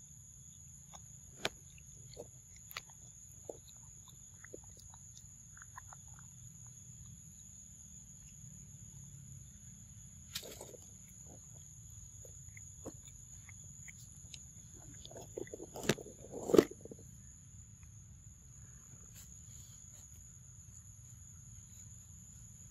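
Baby macaque chewing and biting into soft yellow fruit: scattered small wet clicks and smacks, with a louder burst of fruit handling and knocks about sixteen seconds in. A steady high drone of insects runs underneath.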